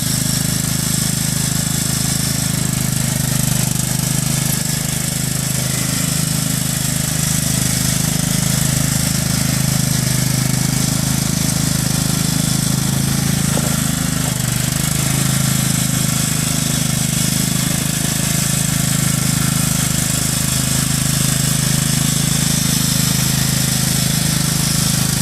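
John Deere riding lawn mower with a 42-inch cutting deck, its engine running steadily.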